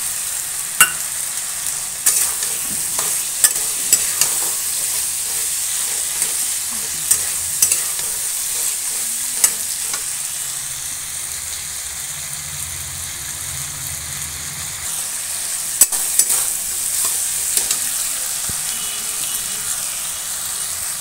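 Potatoes and green peas sizzling in spiced oil in a metal kadhai while a metal spatula stirs them, with sharp clicks and scrapes of the spatula against the pan every few seconds over a steady frying hiss.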